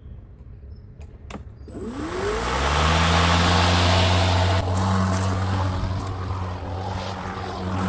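EGO Power+ 56-volt 21-inch cordless electric lawn mower starting: two sharp clicks, then about two seconds in the motor and blade spin up with a rising whine and settle into a steady whirring hum.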